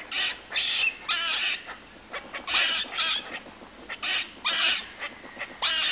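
Squirrel giving a series of short, harsh barking calls, often in pairs, with brief pauses between them.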